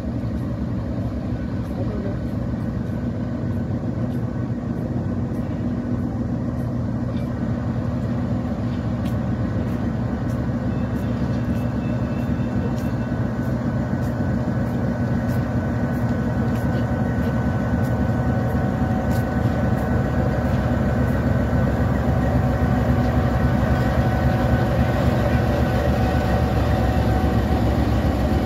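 Diesel-electric GEU-20 locomotive pulling a passenger train away, its engine a steady low drone that grows gradually louder as it draws near and passes, followed by the coaches rolling by.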